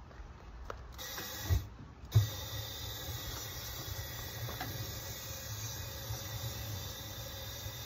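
Handheld propane torch hissing with a low flame rumble as it lights charcoal in a drum smoker. There are two sharp pops near the start, about two-thirds of a second apart, as the flame catches, then a steady hiss.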